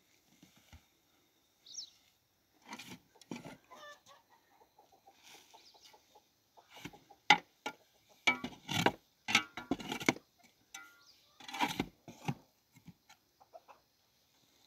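Chickens clucking in short, irregular calls, thickest and loudest in the second half.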